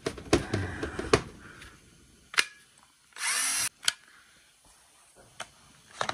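Milwaukee M18 cordless drill's motor spinning up and running for about half a second on a dead battery that has just been revived by boosting it from a good one. Before it come clicks as the battery is slid onto the drill, and after it a click as the battery is pulled off.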